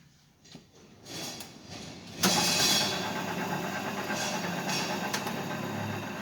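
2A125 vertical drill press switched on after a few faint clicks: its electric motor starts suddenly about two seconds in and runs on steadily with a low hum and the whir of the spindle drive.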